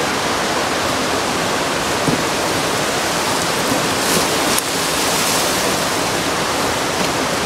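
Steady rush of falling water close by, an even hiss with no change in level.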